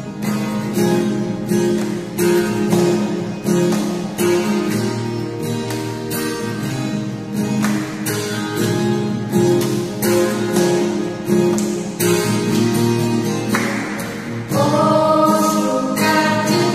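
Instrumental introduction of a children's worship song with a steady beat. Singing comes in near the end.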